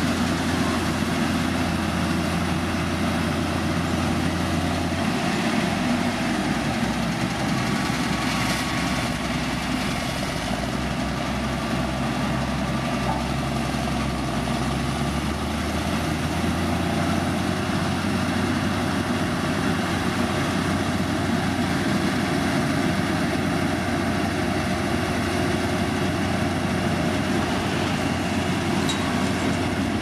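Heavy diesel road-construction machinery running steadily, a constant low engine drone whose pitch shifts a few times.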